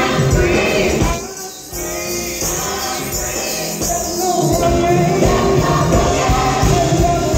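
Gospel music with singing voices and a tambourine-like jingle. The bass and beat drop out about a second in, leaving the voices gliding over the top, then come back in.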